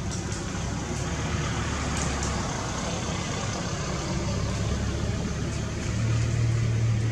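Low, steady rumble of a motor vehicle's engine running, with a hum that swells louder near the end.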